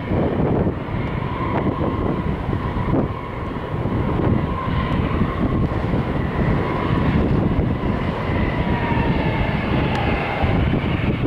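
Aircraft engine noise with a steady whine that sinks slightly in pitch near the end, over rough, buffeting wind noise on the microphone.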